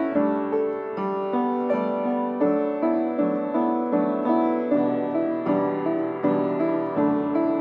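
Piano prelude music: notes and chords struck at an even, unhurried pace, each fading before the next.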